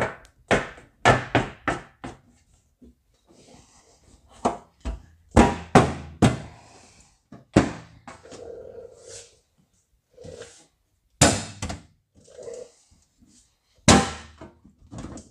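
Irregular knocks and thunks of a sheet-metal replacement quarter panel being set against the vehicle body and clamped in place for a test fit, with a quick run of knocks at the start and single ones after.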